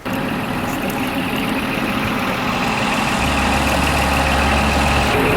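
Tour coach engine running steadily, with a deep low hum that swells for a couple of seconds in the middle.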